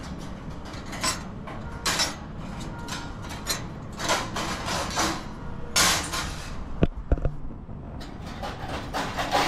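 Small pieces of 2 mm stainless steel sheet clinking and scraping against the sheet and the table slats as they are picked out of plasma-cut letters by hand: a run of irregular metallic clinks and scrapes.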